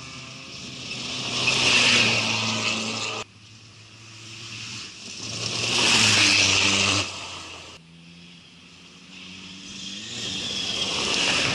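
Off-road race cars driving past one after another on a dirt track: three pass-bys, each engine running hard with tyre and gravel noise, growing louder as it nears. The first two break off abruptly.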